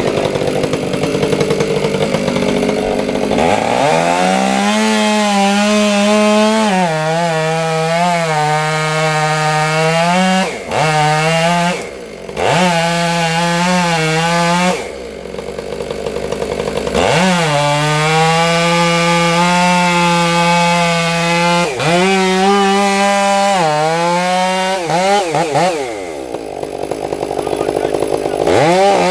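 Chainsaw revving up to full throttle and cutting wood. It holds a high, steady engine note and drops off throttle several times before revving back up.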